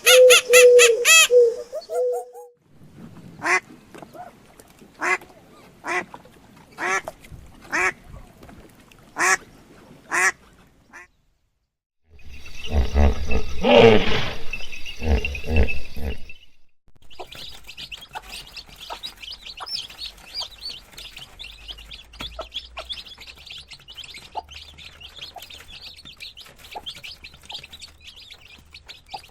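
Animal calls from several short clips, mostly birds: a long wavering call, then a string of short calls about a second apart, a loud burst of overlapping calls, and then steady high chirping.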